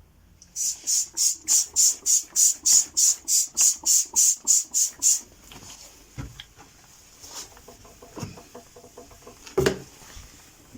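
Trigger spray bottle of vinegar cleaner spritzing in quick succession, about three sprays a second for some five seconds. Then quieter rubbing follows, with a few light knocks.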